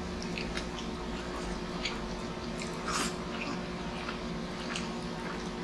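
Steady hum of a window-type air conditioner's compressor, with scattered wet clicks and smacks of chewing and eating with the hands.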